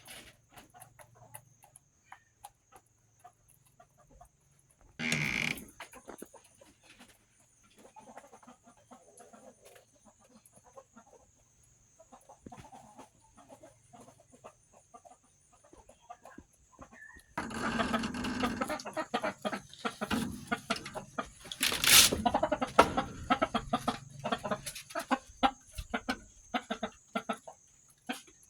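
Domestic chickens clucking: sparse at first with a brief loud burst early on, then busier and louder from about two-thirds of the way through. A faint steady high-pitched tone runs underneath.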